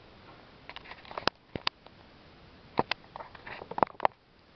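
Irregular sharp clicks and knocks with soft rustling, in pairs about a second in, near the middle and near the end: the camera being handled.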